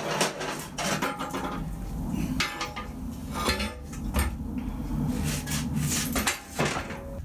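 Bare steel frame of a 1998 Harley-Davidson Sportster 1200 Sport knocking and clanking as it is handled and set down on the floor: a string of sharp metallic knocks, some ringing briefly.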